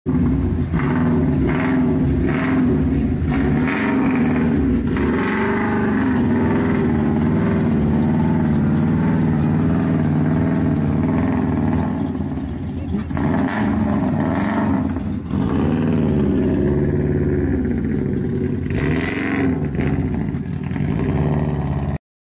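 A 1998 Subaru Forester race car's flat-four engine running at low revs as the car rolls slowly, its pitch wavering slightly, with a few sharp clicks over the top.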